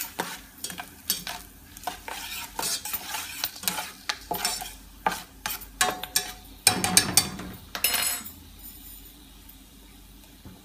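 A utensil stirring and scraping herbs in sizzling vegetable oil in a stainless steel pot, clinking against the pot as the herbs fry to infuse the oil. The stirring stops about eight seconds in.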